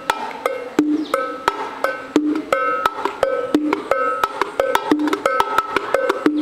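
Bongos played by hand in a quick, steady Cuban rhythm: a continuous run of sharp hand strokes, many of them with short ringing tones at a few different pitches.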